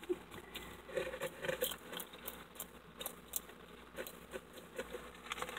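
Monitor lizard chewing roaches: irregular small crunches and crackles as it bites down on the insects' shells.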